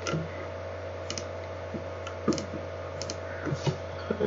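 A handful of separate computer keyboard and mouse clicks, spaced about half a second to a second apart, over a steady low hum.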